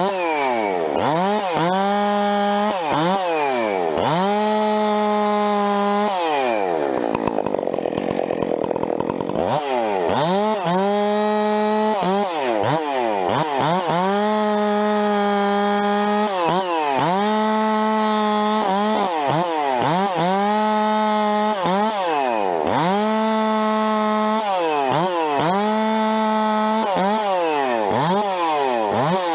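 Two-stroke chainsaw bucking a thin log into short rounds. For each cut the engine revs up, holds at full throttle through the wood, and drops back, about a dozen cuts in quick succession, with a few seconds off the throttle after the first three.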